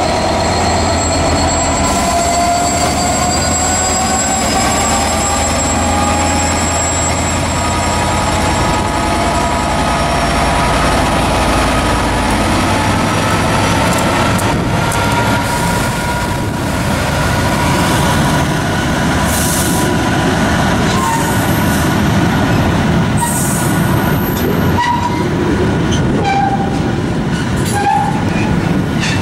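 British Rail Class 66 diesel-electric freight locomotive, with its EMD two-stroke V12, passing slowly. A steady engine drone comes with whining tones that rise gently in pitch over the first ten seconds or so. Then its train of aggregate hopper wagons rolls by with a continuous rumble, scattered clicks over rail joints, and a held wheel squeal.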